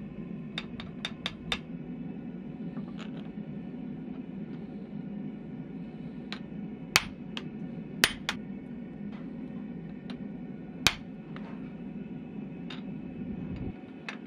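Hammer blows on the top die of a blacksmithing guillotine, driving the cutter into a hot steel bar. A few light metal clinks come first, then three sharp strikes a little past halfway and one more a few seconds later, with lighter taps after. A steady low hum runs underneath and stops near the end.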